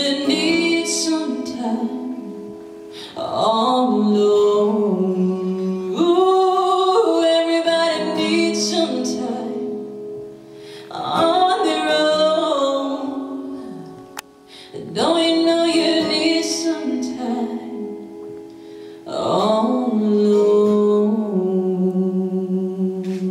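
A woman singing solo to her own acoustic guitar accompaniment, in several long, held phrases with short breaks between them.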